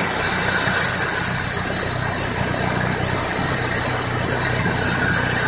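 1994 Mazda MX-3 engine idling with its intake air hose off, a loud, steady hissing of air drawn into the open throttle body over the engine's even hum. The owner takes the hiss for a vacuum leak he cannot trace.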